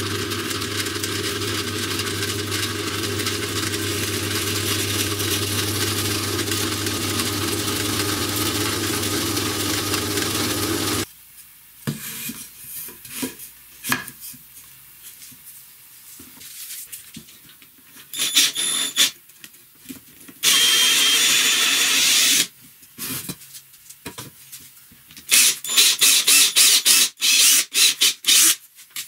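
A bench drill press runs steadily with a low motor hum for about eleven seconds, then stops abruptly. Scattered knocks of wood being handled follow, then a two-second run of a power tool, and near the end a cordless drill boring into wood in quick short bursts.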